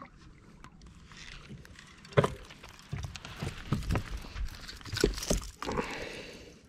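Handling noises as a small bass is landed by hand onto a bass boat's deck: a sharp knock about two seconds in, then a run of irregular knocks and taps, and a brief splashy hiss near the end as the fish comes out of the water.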